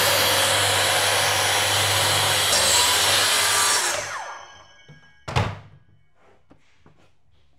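Track saw (plunge circular saw on a rail) cutting through engineered wood flooring, its motor running steadily for about four seconds, then spinning down. A single knock follows about a second later.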